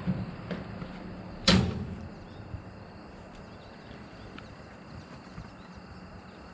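A single sharp knock about a second and a half in, over faint steady background noise with a few small ticks.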